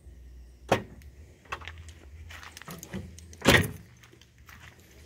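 Clicks and knocks from a Toyota AE92 Corolla Levin's trunk lid and latch: a sharp click under a second in, a few lighter knocks, then a heavier thump about three and a half seconds in.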